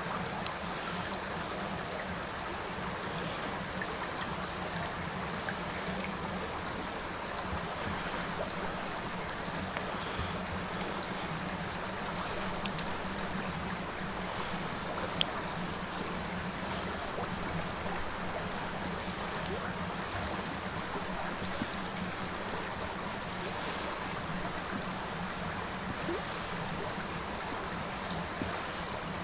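Steady rushing of a stream, with a single sharp click about halfway through.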